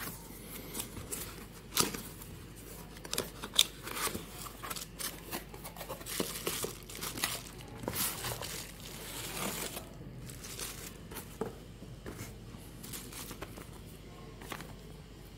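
Cardboard box being opened by hand: the flap scraping and catching, and bubble wrap crinkling, in a dense run of sharp rustles and clicks. Over the last few seconds the handling thins out to a paper instruction leaflet rustling as it is unfolded.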